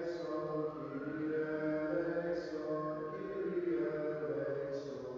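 A man chanting a hymn in Byzantine chant, holding long sung notes that move slowly up and down, with words sung on them.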